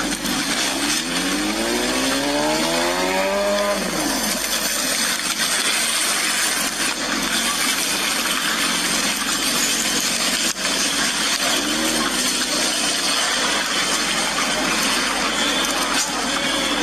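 A vehicle engine revving, rising in pitch over about four seconds and then dropping, with a shorter rev about twelve seconds in, over a steady rushing street noise.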